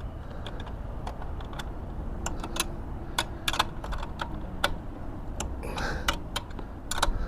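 Irregular sharp metallic clicks from a ratchet wrench being cranked to tighten a bolt.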